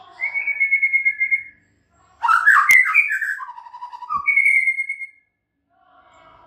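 White-rumped shama (murai batu) singing: three loud phrases of clear whistles and trills, the middle one the loudest with a sharp click in it, before the bird falls quiet about five seconds in.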